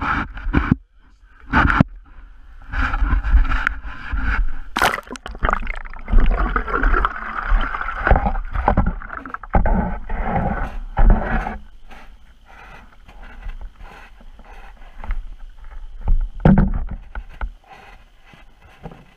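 Handling noise from an action camera in its waterproof housing as it goes down through a hole in the ice: irregular knocks and rubbing with muffled water sloshing, growing quieter after about twelve seconds, with a single louder knock near the end.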